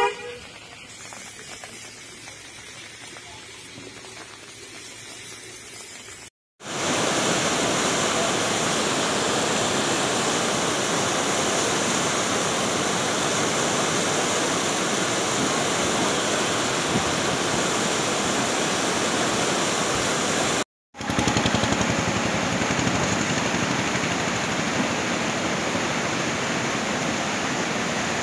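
Rushing floodwater, a loud steady wash of noise that cuts off sharply and starts again twice; the first several seconds hold only a fainter hiss.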